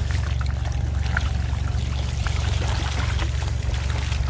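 Hydro jetter clearing a grease-clogged kitchen sink drain line: a steady low drone with water rushing and splashing over it, and small scattered clicks.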